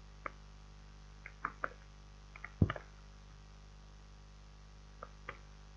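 Scattered clicks of typing on a computer keyboard, about ten in uneven groups, the loudest about two and a half seconds in, over a faint steady low hum.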